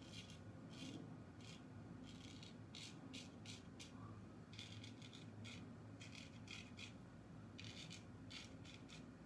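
Vintage 5/8 straight razor scraping through lathered stubble in short strokes: a faint, irregular series of quick rasps, one after another.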